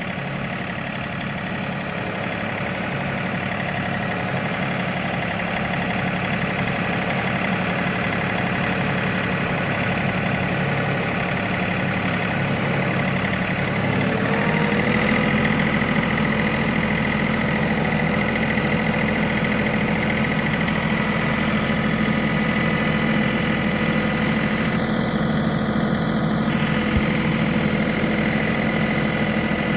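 John Deere tractor engine running steadily while the tractor drives along. About halfway through, its note rises slightly and grows a little louder, then holds.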